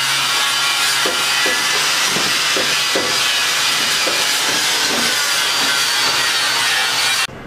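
A loud, steady hiss that starts and cuts off abruptly, with faint short falling tones underneath.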